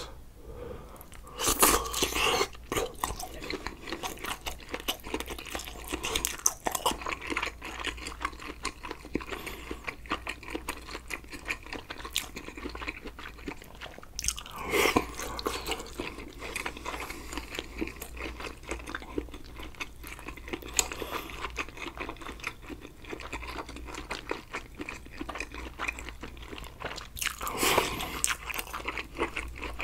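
A person eating sausage stew close to the microphone: steady chewing with wet mouth clicks and crunches, louder about two seconds in, midway and near the end.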